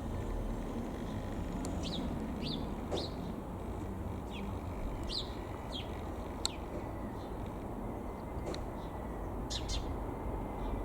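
Small birds chirping, short high falling calls a second or two apart, over a low steady rumble.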